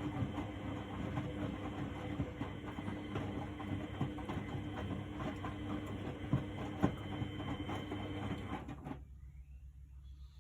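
1999 Miele Novotronic W828 front-loading washing machine on a Cotton 60 wash: its motor hums as the drum turns and the wet load tumbles with a steady clatter. About nine seconds in, the drum stops and the sound drops away, the pause between turns.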